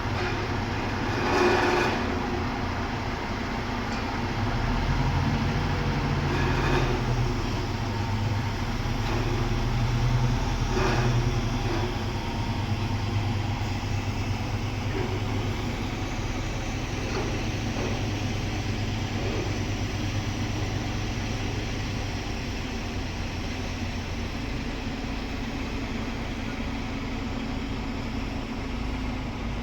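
A heavy machine's engine running steadily with a low drone that swells for several seconds near the start and then settles, with a few brief knocks over it.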